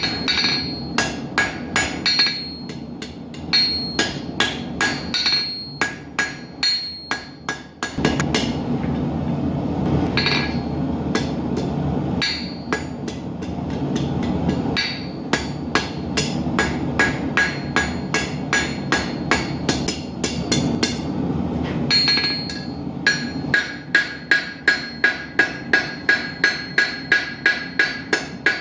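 Hammer blows on hot steel at the anvil, forging a bodkin arrowhead: quick, even strikes about four a second, each with a ringing ping, in bursts with short pauses. Under them runs the steady roar of a gas forge.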